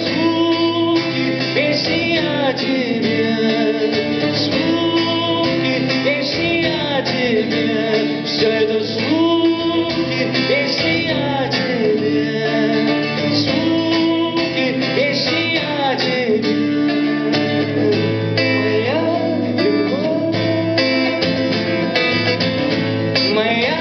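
A song performed live on a strummed acoustic guitar, with a man's singing voice gliding over the chords.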